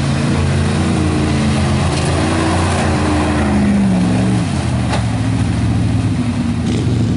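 Modified pickup truck's engine running loud at raised revs, which drop about four and a half seconds in and then hold steady.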